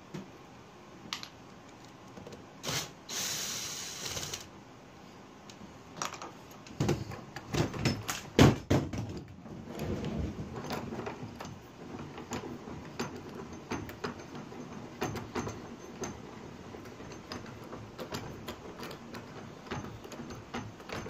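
Handling noise as a homemade wooden bench vise is taken apart: clicks and knocks of a steel pin, nut, washer and threaded rod against the wooden handle and jaws. There is a short hiss about three seconds in, a cluster of louder knocks around seven to nine seconds, then a run of light rattling ticks.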